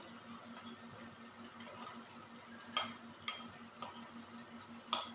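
Sliced bitter gourd being tipped from a plate into a metal wok, then a spatula tapping and scraping the plate, giving a few sharp clicks about three seconds in and again near the end. A faint steady low hum lies underneath.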